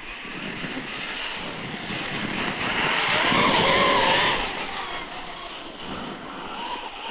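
Losi Tenacity MT 1/10 scale RC monster truck on a speed pass: its brushless electric motor whines and its tyres hiss on the road. It grows louder to a peak about three to four seconds in, with the whine rising and then dropping in pitch, and then fades.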